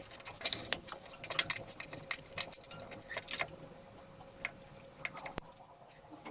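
Light, irregular clicking and rattling of water pump parts being handled during disassembly, busy for the first few seconds and then sparse, with one sharp click near the end.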